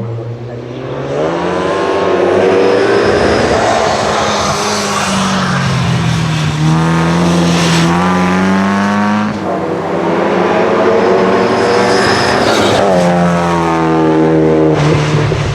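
A racing car's engine accelerating hard at high revs. Its pitch climbs and drops back again several times as it shifts up through the gears.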